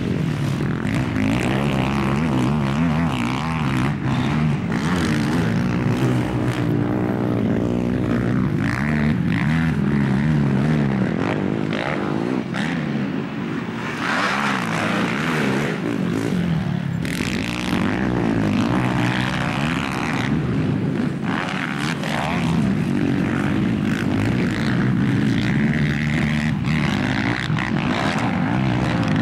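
Racing quad bikes' engines revving hard and easing off over and over as they run the track and jumps, with more than one engine heard at once.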